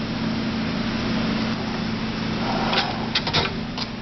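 Steady low hum and hiss, with a quick cluster of sharp clicks and knocks near the end.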